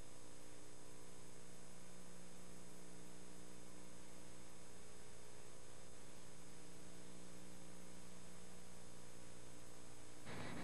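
Steady electrical mains hum with a faint hiss and nothing else, unchanging throughout.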